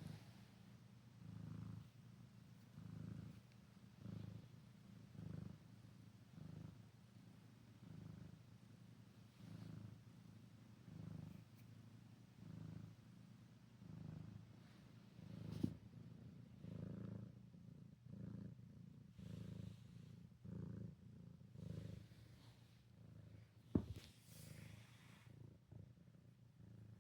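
Domestic cat purring: a low rumble that swells and fades with each breath, about once a second. Two short, sharp sounds break in, a faint one partway through and a louder one near the end.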